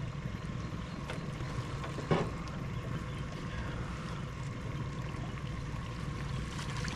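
Steady low rush of water and wind around a small boat, with a faint steady hum and a light knock about two seconds in, as a crab pot is hauled up on its rope. Near the end the wet pot comes up out of the water.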